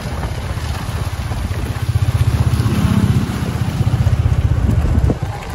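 Motorcycles riding along: a low engine rumble mixed with heavy wind buffeting on the microphone, getting louder about two seconds in.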